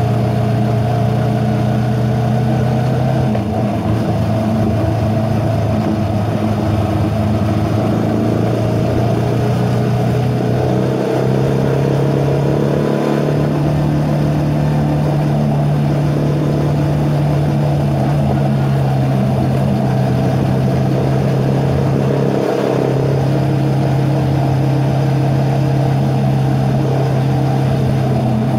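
Motorcycle engine running under way, a steady drone whose pitch steps up and down a few times as the throttle changes.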